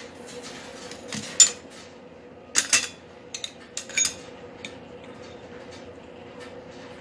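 Metal clinking against metal: a handful of sharp, ringing clinks about one and a half, two and a half and four seconds in, over a steady hum.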